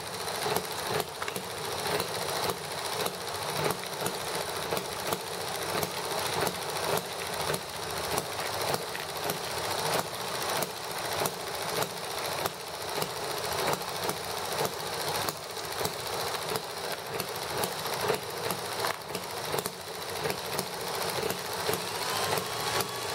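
Dremel rotary tool running steadily at high speed, its motor whining, with irregular scraping as a grinding stone deburrs the inside of a small metal pipe.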